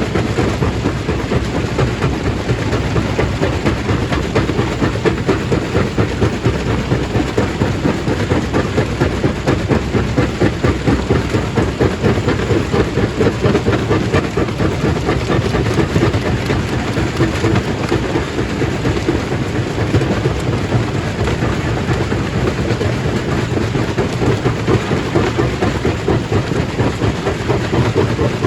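Stone crusher running steadily as it breaks rock into gravel: a loud, continuous heavy clatter with many quick irregular knocks.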